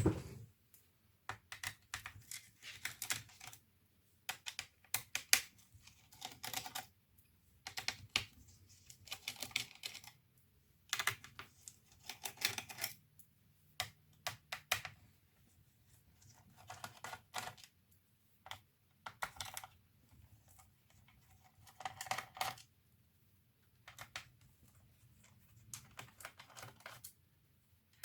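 Small sharp clicks and light rattles of plastic and metal laptop parts being handled, coming in short irregular bursts with brief pauses between them, as an HP 630 notebook is worked on by hand.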